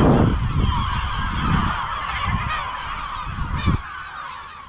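A crowd of gulls calling continuously, many cries overlapping into a steady clamour. Wind rumbles on the microphone until nearly four seconds in, and after that the calling is fainter.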